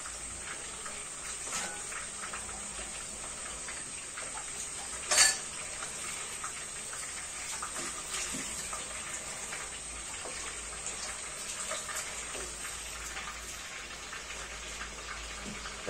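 Meat and onions sizzling steadily in a frying pan, a fine hiss with small crackles. A single sharp knock stands out about five seconds in.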